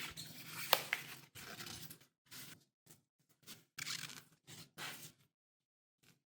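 Close-up handling sounds of packaging and a smartphone being unboxed: a run of short scrapes and rustles with a sharp click about three-quarters of a second in, then dying away after about five seconds.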